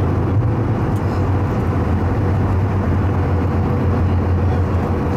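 Cabin noise inside an Airbus A220-300 rolling on the ground after landing: its Pratt & Whitney PW1500G geared turbofans running near idle under a steady low hum and rumble.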